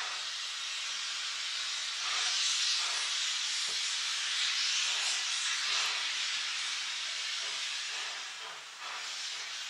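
Steady hiss of escaping steam from an approaching Rx-class steam locomotive, growing a little louder about two seconds in.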